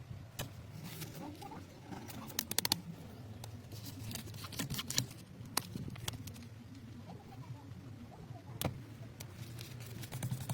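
Scattered light clicks and taps, irregular and a few seconds apart, over a low steady hum.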